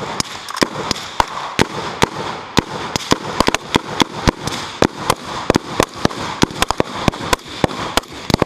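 Rifle gunfire from several shooters at once: a rapid, irregular string of sharp shots, several a second and often overlapping, with no pause.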